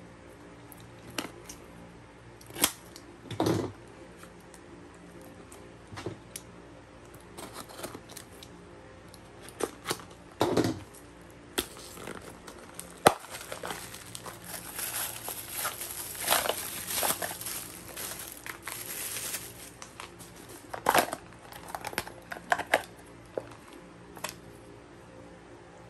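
Plastic parcel packaging crinkling and tearing as a small mailer is pulled open by hand, with scattered handling knocks and two heavier thumps. The crinkling is densest in the middle stretch.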